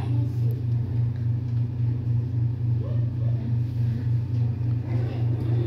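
Steady low mechanical hum with an even throb, about three pulses a second.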